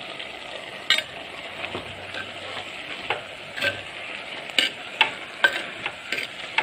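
A metal spoon stirs vegetables and ground coconut in a clay cooking pot, giving irregular short scrapes and knocks against the pot over a steady low hiss.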